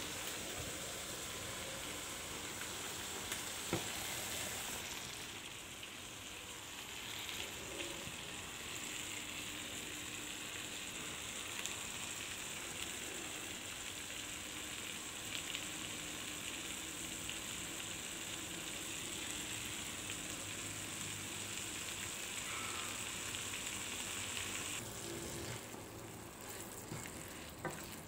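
Beef and broccoli sizzling steadily in a frying pan, with a couple of sharp clicks about three and a half seconds in. The sizzle drops away near the end as the food is stirred with a spatula.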